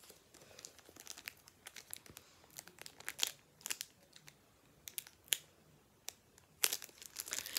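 A plastic packaging wrapper being worked open by hand: irregular crinkling and sharp crackles, with a louder cluster of crackles near the end.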